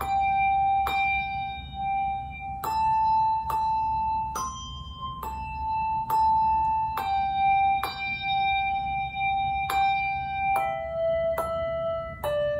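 Handbells rung one at a time in a slow melody, a new bell struck about once a second, each note ringing on under the next.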